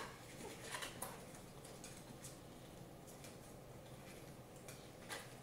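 Puppies suckling at their nursing mother: faint, scattered wet clicks and smacks, the loudest right at the start.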